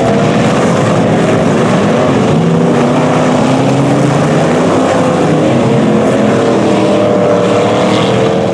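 Loud engines of several dirt-track stock cars racing together, their pitches overlapping and rising and falling as the cars accelerate and lift through the turn.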